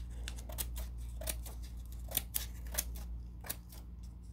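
Scissors snipping into several layers of folded paper: a series of short, crisp snips, roughly three a second, as slits are cut into the paper.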